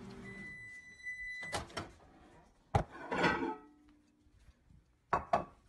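Microwave oven's running hum cutting out, followed by a long end-of-cycle beep. Then its door clicks open, dry kibble rattles in a bowl, and two knocks come near the end.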